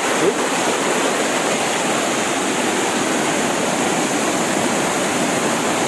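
Water rushing steadily over a rock-terrace waterfall.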